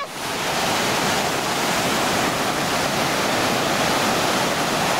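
Sea surf: waves breaking and washing in the shallows, a steady noise with no distinct single crashes.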